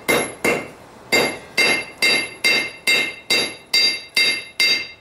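Hand hammer striking a hot railroad spike on the anvil, about two and a half blows a second with a brief pause about a second in, each blow leaving the anvil ringing. The end of the spike is being drawn out into a narrower taper for the hook.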